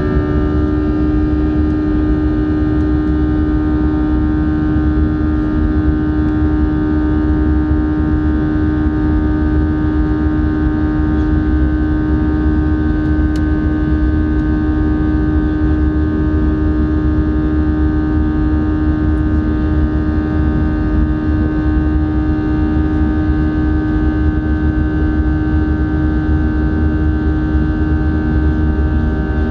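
Steady in-flight drone of an Airbus A320-211 with its CFM56-5A1 turbofan engines and airflow, heard inside the cabin at a window seat beside the engine. A low rumble carries several steady humming tones throughout.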